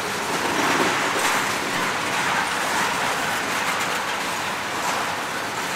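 Freight train cars rolling past close by: a steady rush of steel wheels on the rails.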